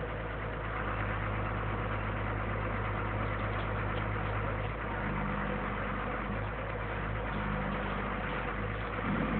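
Truck engine running steadily at idle while driving a truck-mounted hydraulic crane that holds a load aloft. A slightly higher hum comes in twice in the second half.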